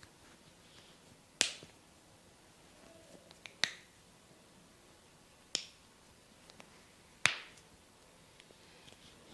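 Four sharp snaps, roughly two seconds apart, from hair cracking during a head massage. The first and last snaps are the loudest, and a few faint small clicks fall between them.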